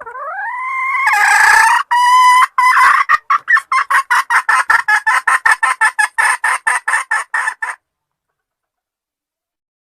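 A hen calling: a long rising note, then a rapid run of short clucks, about five a second, that stops abruptly about eight seconds in.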